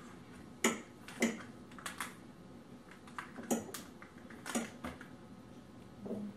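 A metal fork clinking and scraping against a plate as pork is cut and speared with it: scattered sharp clinks, about eight over several seconds.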